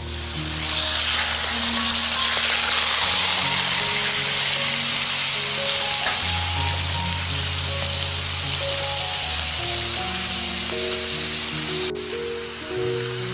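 Kimchi frying in hot duck fat on a cast iron grill plate: a loud sizzle that swells up at once as the wet kimchi lands and then keeps on steadily. A single sharp click comes near the end.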